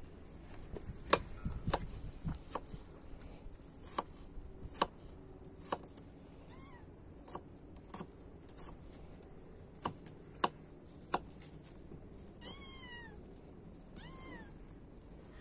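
Knife chopping a red onion on a wooden cutting board: sharp, irregular taps of the blade against the board. A cat meows three times, falling in pitch, the clearest call about twelve seconds in.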